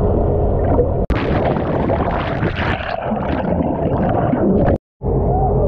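Heard from underwater: a person plunges into the sea with a sharp hit about a second in, then a rush of bubbles and gurgling that ends abruptly near the end. A steady low hum runs underneath.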